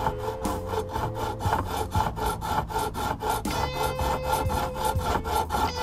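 A fret-end file is drawn in repeated strokes along the edge of a guitar fretboard, rasping across the ends of the fret wire. It is levelling the protruding fret ends flush with the edge of the board.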